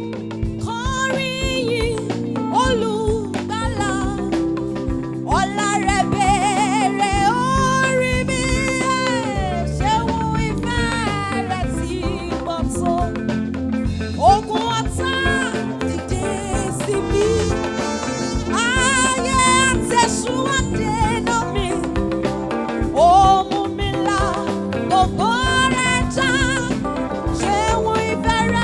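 Gospel praise music: a band plays a steady accompaniment under a wavering, gliding lead melody in phrases.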